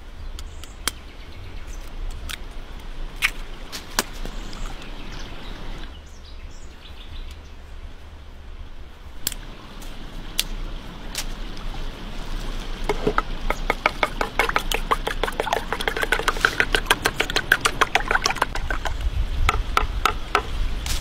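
Eggs cracked into a wooden bowl with a few sharp taps, then beaten with a fork: a fast run of clicking from about two-thirds of the way in that stops shortly before the end.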